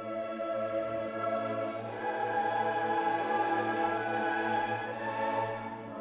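Classical music: a choir singing sustained notes with an orchestra.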